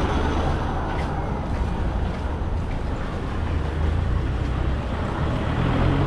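Busy street ambience under a steady low rumble of wind buffeting the microphone.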